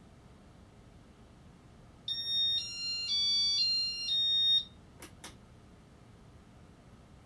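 Electronic beeper of a Casablanca Inteli-Touch fan control playing a short chime of five tones that step up in pitch and back down, lasting about two and a half seconds, followed by two quick clicks.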